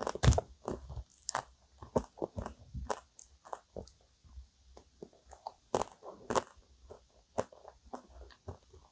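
Close-up mouth sounds of chewing a mouthful of ice cream cake: irregular crunches and moist clicks, loudest just after the start and again around six seconds in.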